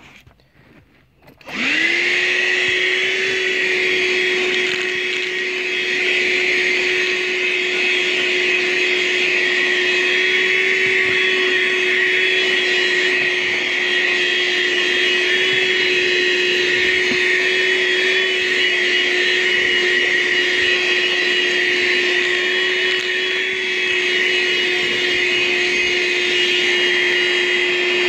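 Armor All 12-volt handheld car vacuum switched on about a second and a half in, its motor quickly spinning up to a steady whine with a hiss of rushing air. It runs on the car's 12-volt battery power with the engine off.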